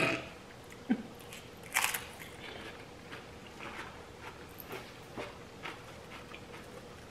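A potato chip topped with spinach dip being bitten and chewed close up. There is a sharp crunch a little under two seconds in, then fainter crunching and small mouth sounds.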